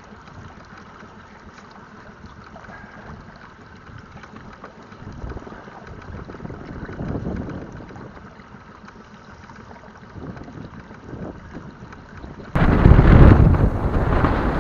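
Wind buffeting the microphone on a pontoon boat in gusty wind, swelling in gusts. About two-thirds of the way through it jumps suddenly to a much louder rumbling wind blast.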